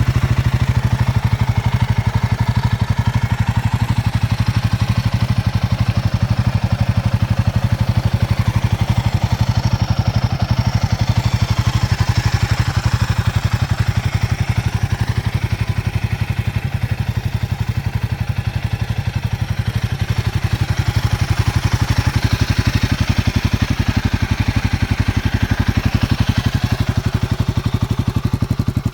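Royal Enfield Himalayan 450's single-cylinder engine idling steadily through its stock exhaust, an even, rapid low pulse that holds at one speed.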